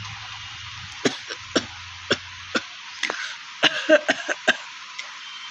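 A person coughing in short, sharp single coughs about every half second, then a quicker cluster of coughs around four seconds in, over a steady hiss. It is a real dry cough, not a chesty one from phlegm.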